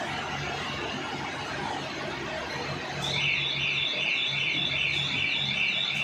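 Silage baler-wrapper machine running with a steady hum; about halfway through its warning siren starts, a loud warbling tone rising and falling about three times a second.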